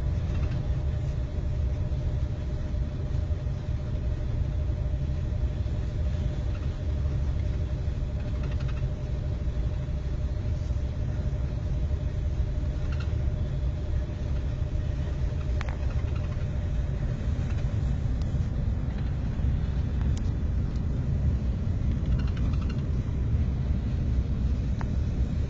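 Interior cabin noise of a TGV high-speed train running at speed: a steady low rumble, with a faint steady tone that fades out about three-quarters of the way through.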